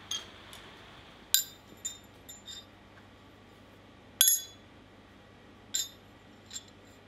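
Steel clinking on a steel anvil as the hammer and the freshly forged nutcracker are set down and handled on it: a string of sharp, ringing clinks, the loudest about one and a half and four seconds in.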